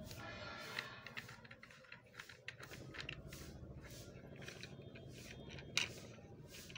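Faint handling noise of a plastic car phone holder with a suction cup: scattered light clicks and rubbing as it is turned in the hands, with one sharper click near the end.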